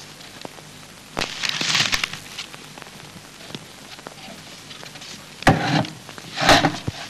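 Scattered clicks and knocks with three short clattering bursts: one about a second in, and two close together near the end.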